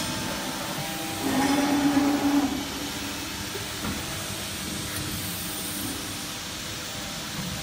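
Electro-hydraulic CNC press brake running with a steady machine hum. About a second in, a louder whine rises for about a second and a half, then drops back to the hum.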